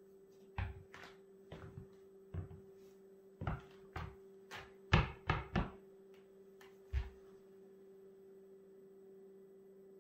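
Studded soccer cleats knocking on a wooden floor as the wearer steps and shifts her feet: about ten irregular thuds, the loudest three in quick succession about five seconds in, then still after about seven seconds.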